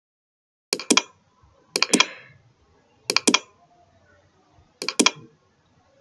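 Computer mouse button clicked four times, spaced about a second apart, each click heard as a quick pair of sharp clicks (press and release).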